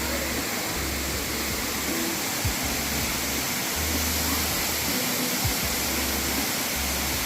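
A waterfall rushing in a loud, steady roar, with background music and its low bass line playing faintly underneath.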